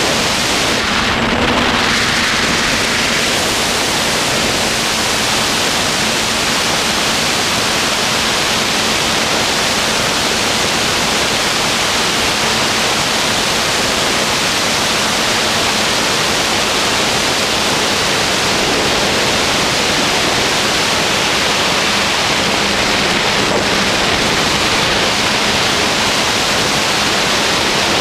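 Loud, steady, static-like hiss, even across high and low pitches, with a faint low hum underneath.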